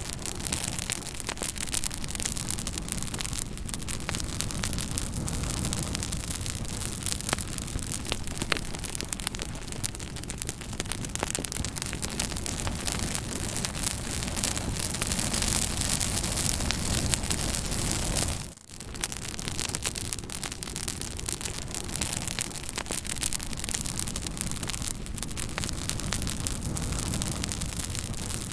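Fire crackling: a steady hiss thick with small sharp pops and snaps. The sound dips out for a moment about two-thirds of the way through.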